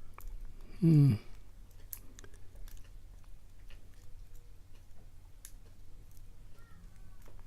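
Faint scattered clicks and scrapes of a lock pick and tension tool working the pin stack inside a padlock, as pins are lifted and set. About a second in there is one short, louder pitched sound that rises in pitch.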